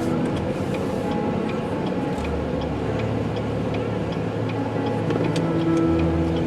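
Car driving, with steady engine and road noise and a light, even ticking that fits the turn signal set for an upcoming right turn.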